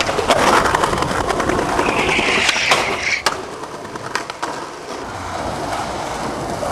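Skateboard wheels rolling on concrete, with a scraping slide about two seconds in and sharp clacks of the board around three seconds. Then more rolling with a few more clacks.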